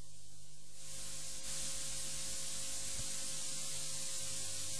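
Steady electronic static and hiss over a low electrical hum on a live field audio feed, the hiss growing louder about a second in, with a faint click about three seconds in. It is the noise of a faulty microphone line that was breaking up and is being rewired.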